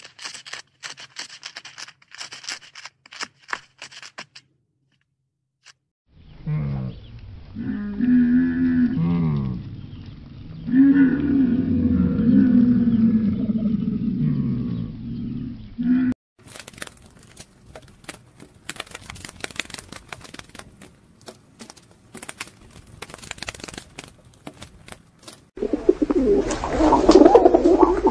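A coypu chewing food with crunchy clicks, then a dromedary camel's low, pitched moaning call in two long stretches with the pitch bending up and down. After that comes a run of sharp clicks, and near the end a pigeon cooing.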